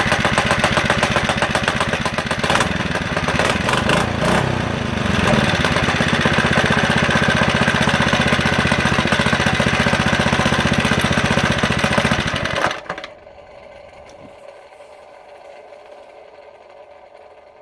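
Small single-cylinder minibike engine running steadily after a fresh start, then shutting off abruptly about 13 seconds in.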